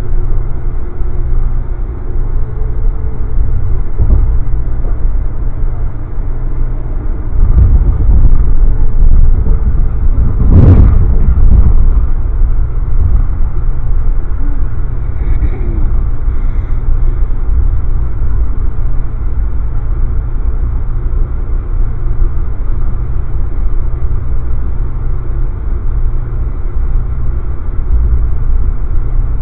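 Amtrak passenger train running at speed, heard from inside the coach: a steady low rumble of wheels and running gear on the track. It grows louder for a few seconds in the middle, with one sharp burst about ten seconds in.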